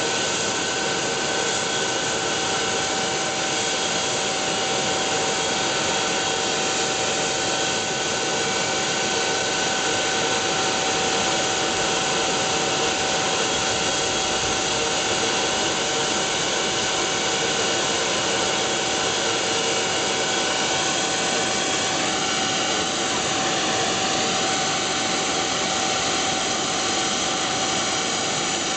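MD902 Explorer NOTAR helicopter's twin turbine engines running while it sits on the ground: a steady whine of several held tones over a broad rushing noise.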